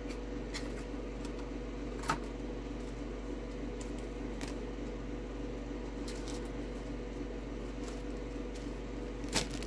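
A steady electrical hum of room tone, with a few faint clicks and taps from small packaged items being handled, the most distinct about two seconds in and near the end.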